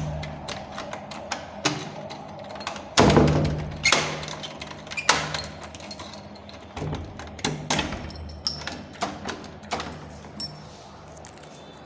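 Keys jangling and a door lock clicking as the door is locked with a key, with a heavy thud about three seconds in and several smaller knocks after it.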